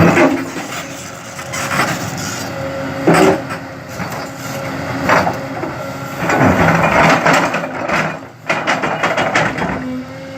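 Heavy construction machine's diesel engine running under load, with repeated loud cracking and crunching as it breaks through material, the heaviest bursts about 3 and 5 seconds in and a longer stretch of crunching in the second half.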